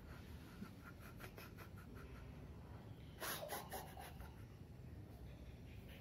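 Kitten's claws scratching and rustling on a burlap mat: a run of quick, faint scrapes in the first couple of seconds, then a louder scratchy rustle about three seconds in.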